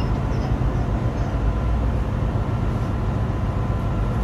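Steady low rumble of a ship's deck background noise, with a faint steady hum running through it.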